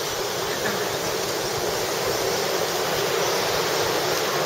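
Steady rushing of surf washing up on a beach.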